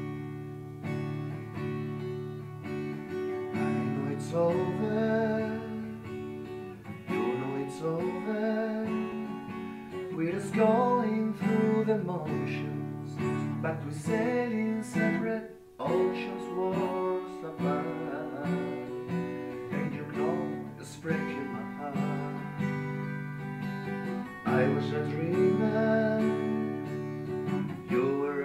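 Acoustic guitar strummed in chords, with a short break about halfway through.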